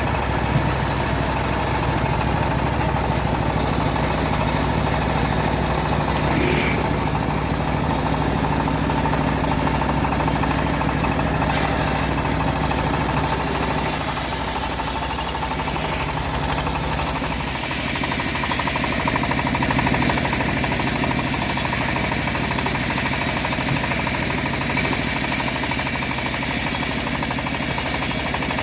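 Engine-driven homemade bandsaw running steadily, sawing trembesi wood. About halfway through, a harsh high hiss comes in, cutting in and out as the blade works through the wood.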